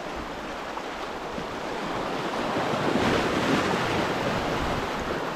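Sea waves surging and breaking over a rocky shelf at the water's edge, swelling to a louder wash about halfway through and then easing off.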